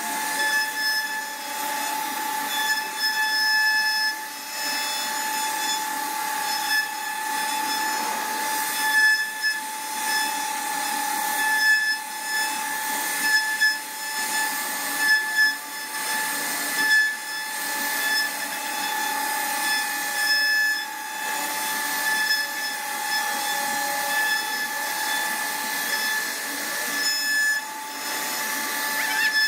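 CNC wood router spindle running with a steady high whine, the noise of its bit cutting wood rising and falling unevenly.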